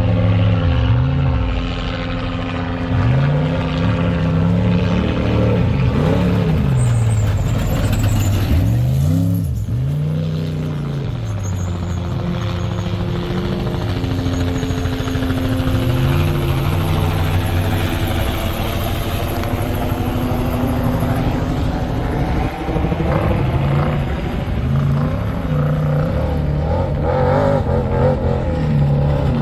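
Off-road race trucks' engines running hard, the pitch climbing and falling over and over as the throttle comes on and off.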